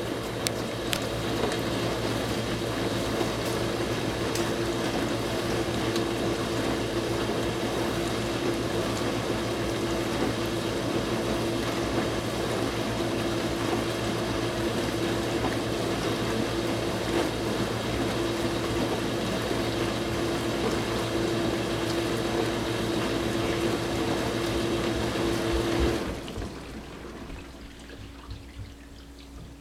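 Dishwasher wash cycle running: the circulation pump hums steadily while water sprays and sloshes inside the tub. About 26 seconds in the spraying stops abruptly, leaving a faint low hum and a few drips as the cycle pauses.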